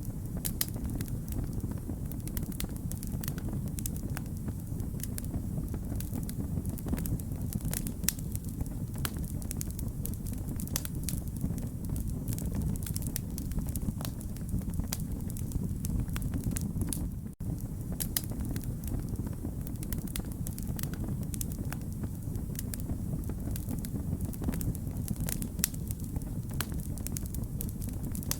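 Wood fire burning: frequent sharp crackles and pops over a steady low rumble of flames. The sound cuts out for an instant about two-thirds of the way through.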